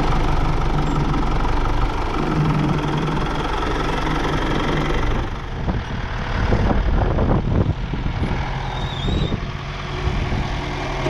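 John Deere utility tractor's diesel engine running steadily at low revs as it pulls a John Deere 7000 corn planter. A run of knocks and clatter from the moving planter comes about halfway through.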